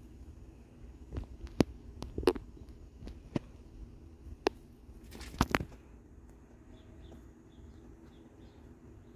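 Scattered sharp clicks and scuffs of two kittens play-fighting on concrete, with a cluster of louder knocks about five and a half seconds in. Faint repeated bird chirps follow near the end.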